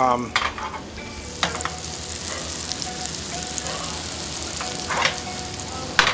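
Banana slices frying in melted butter in a frying pan, a steady sizzle as they cook down and soften, with a few sharp knocks scattered through it.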